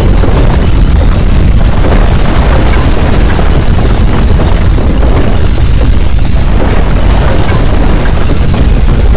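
Loud, continuous low rumble of violent earthquake shaking, with scattered rattles and knocks over it.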